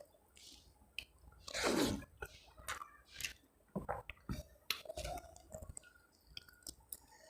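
Close-up chewing and wet mouth sounds of a person eating mutton curry and rice, with many small clicks and smacks and one louder, longer noisy sound about a second and a half in.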